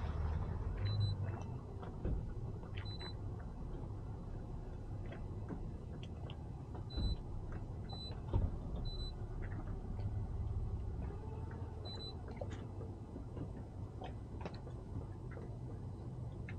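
Boat engine idling with a steady low rumble, while six short high electronic beeps sound at irregular intervals and light knocks and clicks come and go.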